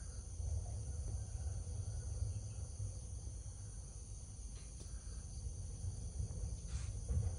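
A steady, high-pitched chorus of insects chirring, with a low rumble underneath.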